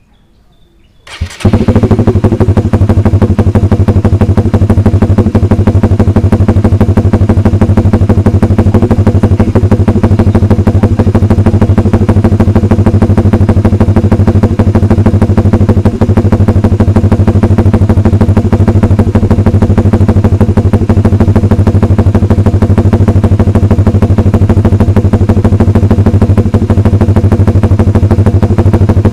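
Honda Supra GTR150's single-cylinder engine starting about a second in through a Vmax racing muffler with its silencer removed (open pipe), then idling loud and steady.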